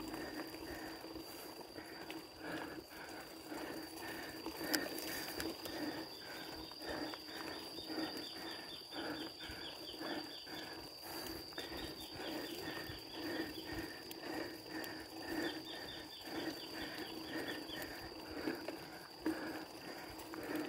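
Mountain bike rolling along a paved lane: the rear freewheel hub ticks rapidly in several stretches as the rider coasts, over a steady high-pitched whine and a soft rhythmic pulsing about twice a second.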